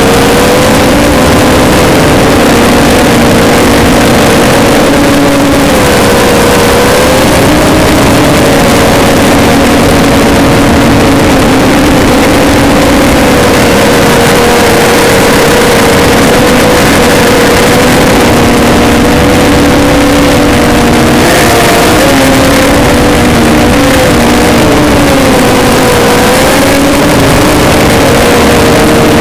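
ZMR250 mini-quadcopter's electric motors and propellers whining as it flies, recorded by its onboard camera: loud and distorted. The pitch holds steady, then wavers up and down as the throttle changes, most around a third of the way in and again past the two-thirds mark.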